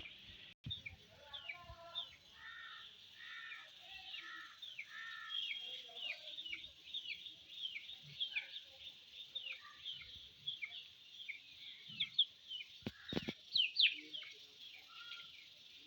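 Baby chicks peeping: many short, high chirps that fall in pitch, several a second, overlapping from more than one bird. In the first five seconds a lower call repeats about every 0.7 s, and a few soft knocks come about 13 seconds in.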